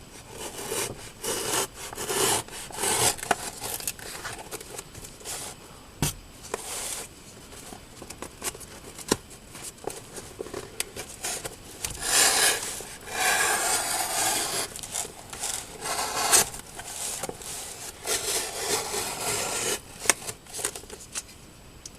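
A package being cut open with a Ka-Bar Dozier Folding Hunter folding knife: irregular scraping, sawing and tearing strokes of the blade through tape and packaging, with small clicks and rubbing as the box is handled.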